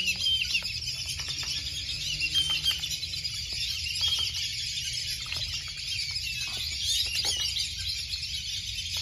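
Muscovy duck pecking dry pellets from a plastic bowl: a scatter of small irregular clicks and crunches, over continuous chirping of small birds.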